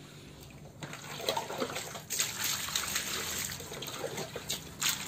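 Water running from a garden hose into a plastic bucket and splashing as a soapy football jersey is rinsed in it. It starts faintly about a second in and runs stronger from about two seconds in.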